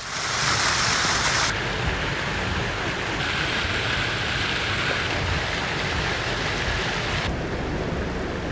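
Rushing floodwater and heavy rain: a loud, steady rush of water, strongest in the first second or so, changing abruptly in character three times.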